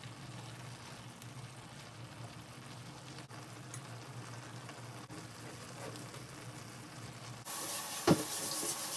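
Collard greens and lamb sizzling in a pot as they are stirred, a steady faint hiss. About seven and a half seconds in the hiss suddenly gets louder, and a single sharp knock follows.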